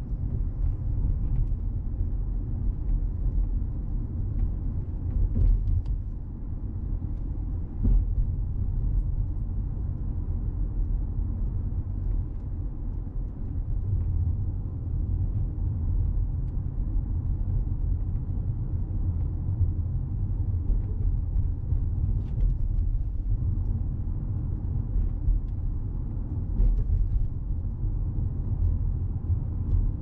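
Steady low road and tyre rumble heard inside the cabin of a moving Toyota Crown Athlete hybrid, with a few short knocks.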